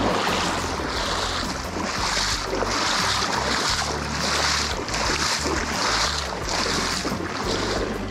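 Water splashing in a steady rhythm as a person wades knee-deep through a shallow, fast river, dragging a kayak upstream against the current. The splashes come about one every two-thirds of a second over a steady rush of moving water.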